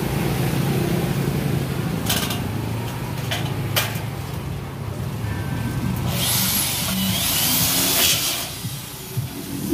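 Power drill driving a screw into galvanized metal furring, a whining burst of about two seconds starting about six seconds in, preceded by a few sharp metal clicks, over background music.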